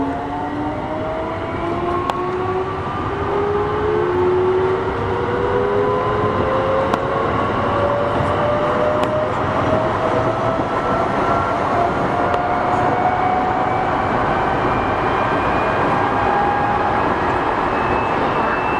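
Eidan 6000 series electric train accelerating. Several whining tones from its traction motors and control equipment rise together steadily in pitch as it gathers speed, over a growing rumble of wheels on rail.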